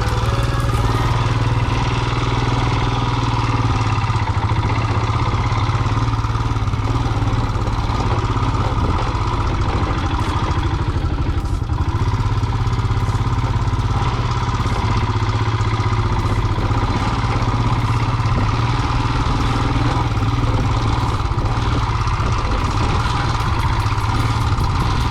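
Royal Enfield single-cylinder motorcycle engine running at a steady, unchanging note.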